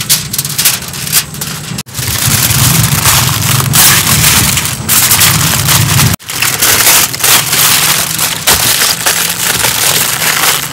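Aluminium foil crinkling and crackling as hands crumple and fold it tightly around a whole chicken, breaking off briefly twice.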